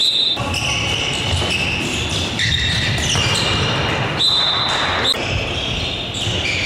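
Indoor court game sounds: a handball bouncing on the hall floor and players' shoes squeaking as they run, with short high squeaks coming and going throughout, in a large echoing sports hall.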